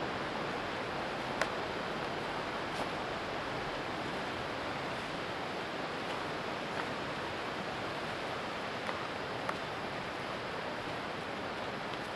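Steady, even rushing of a river's flowing water, with a few faint clicks.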